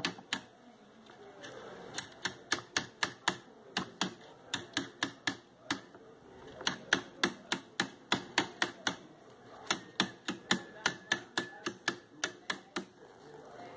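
Quick runs of sharp clicks and taps, about four to five a second, in several bursts with short pauses between them. They come from a metal hand tool worked against the rattan cane strands and the wooden frame while a chair seat is being hand-caned.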